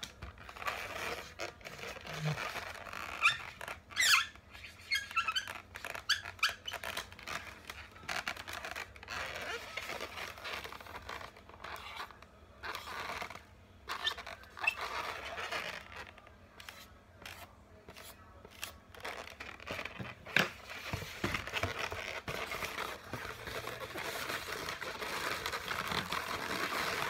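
Twisted latex modelling balloons squeaking and rubbing as they are handled and drawn on with a marker: irregular squeaks and rustles, with a quick run of sharp squeaks about four seconds in.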